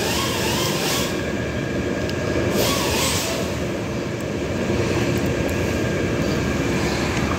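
Steady mechanical rumble and hum of unknown source, with a few brief rushes of noise in the first few seconds.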